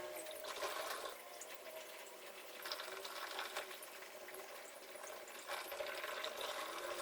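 Water running and splashing in a twin-tub washing machine, a steady rushing sound with a faint hum underneath.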